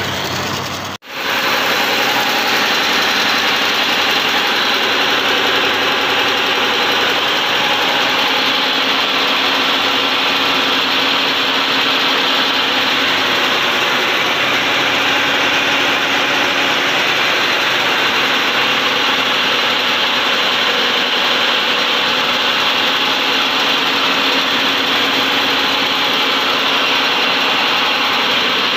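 A paper-straw individual packing machine running steadily, with a continuous mechanical whirring hum that has several steady tones in it. The sound cuts out briefly about a second in, then resumes at the same even level.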